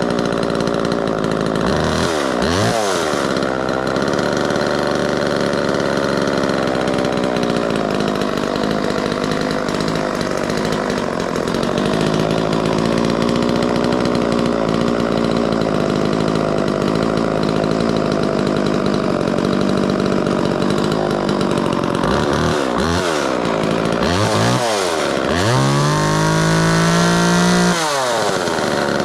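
Homelite XL two-stroke chainsaw running after a cold start, warming up. It is revved briefly about two seconds in, blipped a few times later on, then held at high revs for about two seconds near the end before it drops back to idle.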